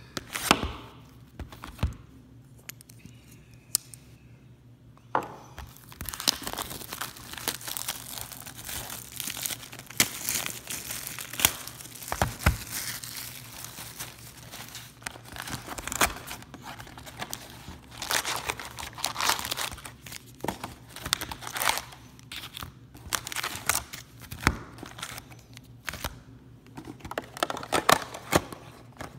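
Plastic shrink wrap on a cardboard trading-card box being slit with a knife and torn off, crinkling and crackling in spells. After a few sharp clicks, the crinkling starts about five seconds in.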